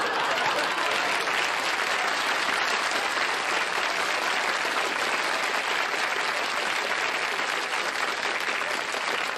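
Studio audience applauding, a dense steady clapping that eases slightly near the end.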